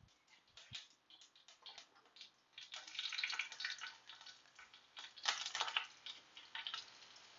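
Mustard seeds crackling and popping in hot oil in a pan, the tempering (tadka) step: faint irregular pops, thickest about three seconds in and again about five and a half seconds in. The crackling is the sign that the oil has reached frying heat.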